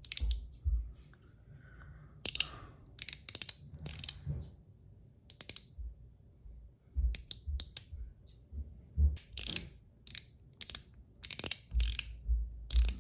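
Zirconium mechanical slider, a Blasted Zirc One Pal, being slid back and forth by hand. Its spring-loaded ball detents give sharp clicks and short metal scrapes, about a dozen in irregular bursts, with dull thumps from the handling.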